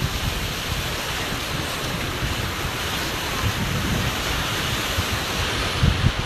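Wind buffeting the microphone: a steady rushing hiss with low rumbling gusts, one stronger gust near the end.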